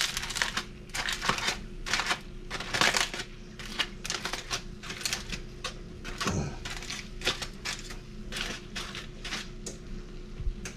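Aluminium foil crinkling and crackling in rapid irregular bursts as it is pulled open and folded back.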